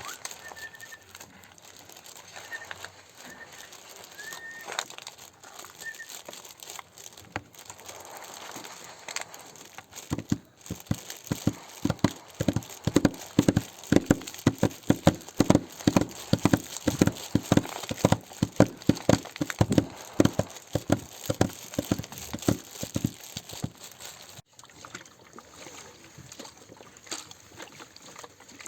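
Nature sounds imitated with classroom objects: a soft rustle with a few short high chirps, then, from about ten seconds in, a long run of loud, uneven hollow taps and knocks, several a second, which stop suddenly a few seconds before the end.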